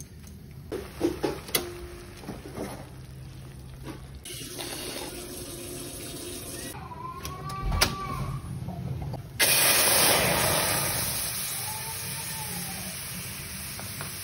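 Orange spice paste frying in hot oil in a wok: a loud sizzle starts suddenly about two-thirds of the way in and slowly eases to a steady sizzle. A few sharp knocks come before it.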